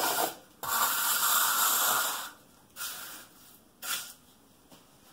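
Flat hand trowel scraping across a stiff, sticky concrete mix in a countertop form: a short stroke, a long stroke of about a second and a half, then two shorter strokes.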